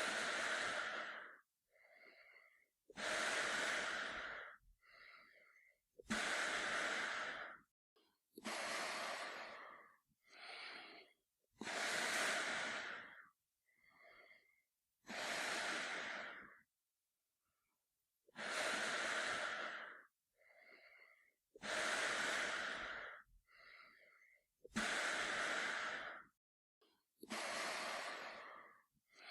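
A man breathing slowly and steadily through a gas mask, with a hollow, hissy sound. Each long, loud breath is followed by a shorter, softer one, about one cycle every three seconds.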